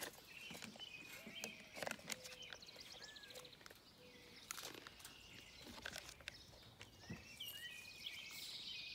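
Faint birdsong: short chirps and whistles from several birds. A few sharp clicks cut through as wire is handled against the steel round bale feeder.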